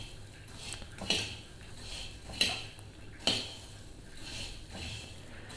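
A spoon stirring peanuts through hot salt in a wok as they dry-roast: the nuts and salt grains scrape and rattle against the pan. The spoon knocks sharply against the pan about three times.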